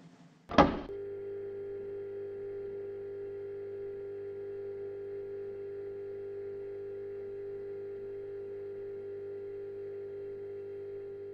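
A sharp attack, then a single steady electronic tone held at an even level: the closing note of a podcast's outro music.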